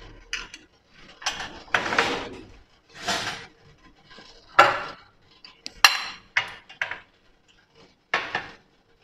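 Spoon clinking and scraping against a glass jar and a kadai as ghee is spooned into the pan: a string of short, irregular clinks and scrapes with quiet gaps between.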